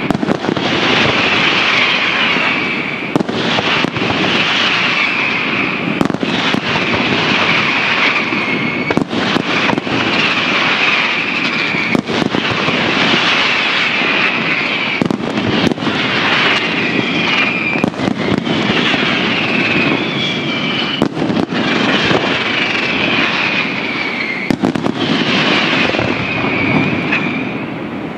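Aerial fireworks display going off continuously: dense bursts and crackling, with sharp reports throughout and a high whistle that comes back about every three seconds, each time falling in pitch as it ends.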